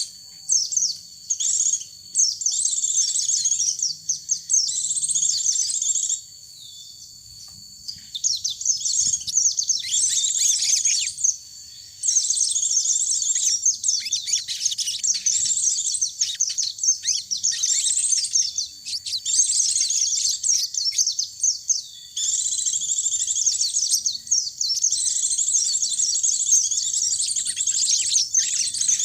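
Small songbirds, pleci (white-eye) and sogon, singing rapid, high-pitched twittering chirps in long bouts. The bouts break off briefly near the start, for about two seconds after the first quarter, and again around the middle.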